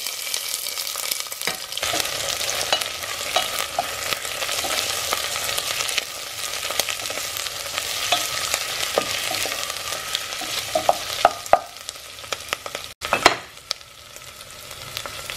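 Sliced white onions sizzling in hot oil in a stainless steel pot, a steady hiss, with a wooden spoon scraping and clicking against the pot as they are stirred. The sizzle breaks off for a moment near the end.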